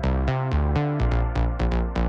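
Background electronic music: synthesizer notes struck in a quick steady rhythm over a deep bass line.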